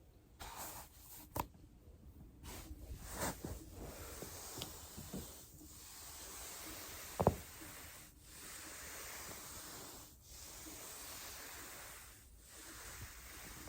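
Body working over a foam roller: a soft rubbing hiss in stretches of about two seconds. A single sharp joint crack comes about seven seconds in, with a fainter click near the start.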